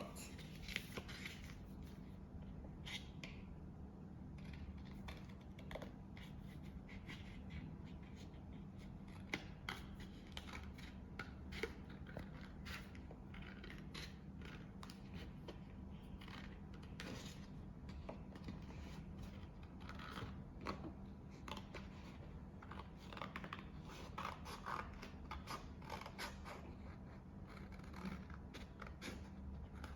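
Small scissors snipping paper, cutting along drawn lines: many faint, irregular snips.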